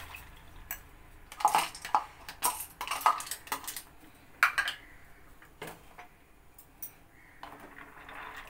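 A wooden spatula stirring macaroni in boiling water, knocking and scraping against the side of an aluminium pot in irregular clinks, fewer and fainter after about six seconds.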